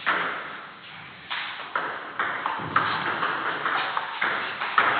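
Table tennis ball clicking off bats and the table, a string of sharp knocks about two a second, each ringing on briefly in a large hall.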